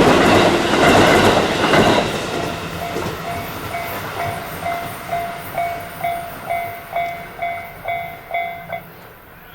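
A train crosses a level crossing, its wheels clattering loudly for the first two seconds and then fading. The crossing's warning bell rings a repeating ding about twice a second, then cuts off shortly before the end as the barrier signal stops.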